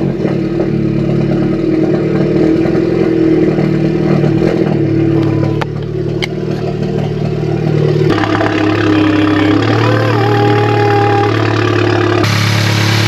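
A VW Golf GTI's turbocharged 2.0-litre four-cylinder running at a steady idle on its first start after a big-turbo (EQT IS38+) swap. Heard from inside the cabin, then from outside the car from about eight seconds in.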